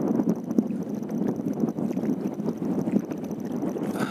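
Wind on the microphone over small waves lapping on open water: a steady low rushing with many small slaps and ticks.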